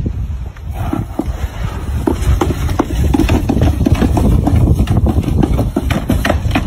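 Plastic sled scraping and knocking as it is dragged over a brick path and wooden steps: a low rumbling scrape broken by many short, sharp knocks.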